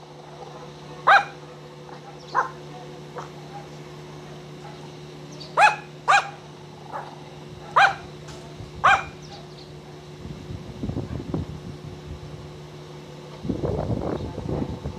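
A small shih tzu barks in short, sharp yaps, about six of them spaced a second or more apart over the first nine seconds. A rough, lower noise follows near the end.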